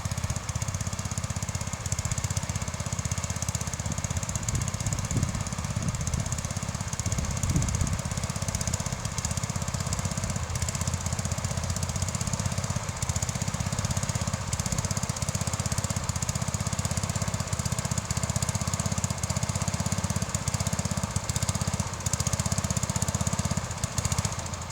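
Bolens 1050 garden tractor's engine running steadily with a fast, even firing pulse.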